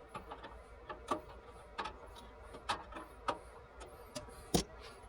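Scattered light clicks and knocks of tools and metal parts being handled during blower reassembly, at irregular intervals, with one louder knock near the end, over a faint steady hum.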